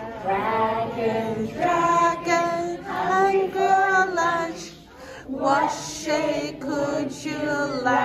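A woman singing a children's song, with the seated group of parents and children singing along; the song breaks briefly about five seconds in before the next line.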